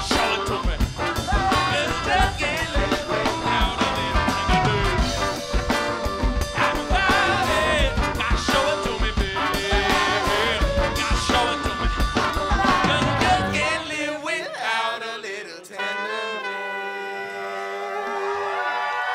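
Live funk band (electric guitars, drums, trombone and trumpet) playing full out under a shouted lead vocal. About fourteen seconds in, the drums and bass stop on the song's ending, leaving a few held notes ringing over audience cheering.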